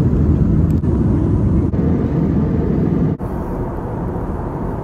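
Steady low rumble of an airliner heard from inside the cabin: jet engines and rushing air. It steps a little quieter about three seconds in.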